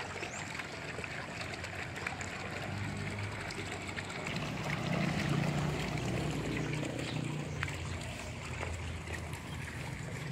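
Faint water trickling and sloshing in a shallow concrete fish pond, with light splashes. A low hum swells around the middle.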